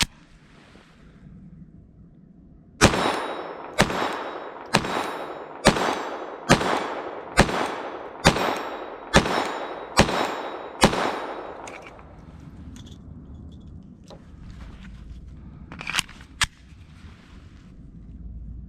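Glock 44 .22 LR pistol firing ten shots of 36-grain ammunition at a steady pace, a little under a second apart. A few faint handling clicks follow.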